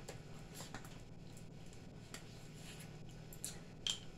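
Scattered light clicks and crackles of plastic water bottles being handled and their caps twisted, with a sharper click just before the end, over a low steady hum.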